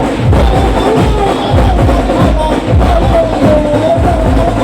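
Loud festival procession music: a wavering melody line over heavy drum beats roughly twice a second.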